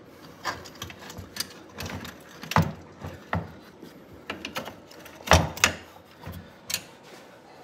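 Irregular clicks and knocks of a Sea-Doo Spark's jet pump assembly being wiggled against the hull and intake while it is worked into line with the driveshaft spline. The loudest knocks come about a third of the way in and a double knock past two thirds.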